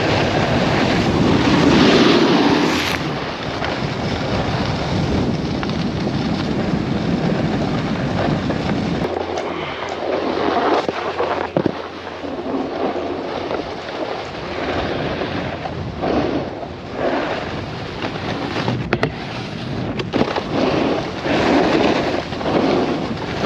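Wind buffeting the microphone of a helmet-mounted GoPro during a snowboard run, mixed with the board sliding and scraping over snow. The deep rumble drops away about nine seconds in, and after that the noise comes in short uneven swells.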